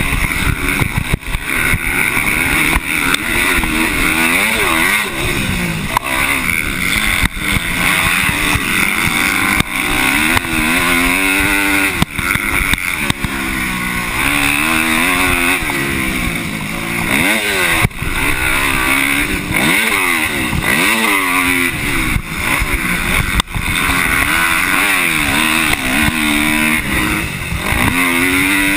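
Dirt bike engine heard from the rider's chest, revving up and falling off again and again as the throttle opens and closes around the motocross track. A few sharp knocks come through now and then.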